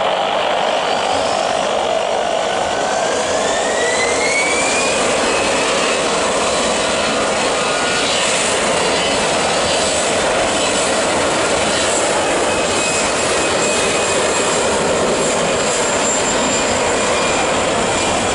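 Jet engines of an Airbus A320-family airliner at takeoff thrust, a steady loud rush as it rolls down the runway. A rising whine a few seconds in as the engines spool up to takeoff power.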